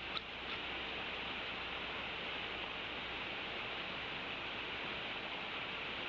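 Adult male bald eagle gives the last short notes of a quiet call in the first half second, then only a steady hiss remains.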